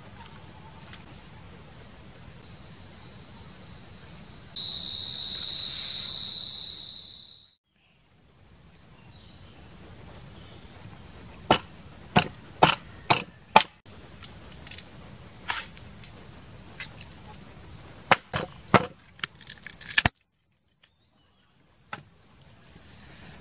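Insects buzzing steadily at a high pitch, growing louder for a few seconds before stopping. Then a series of sharp cracks, a dozen or so over about eight seconds, as a green bamboo pole is split into thin strips.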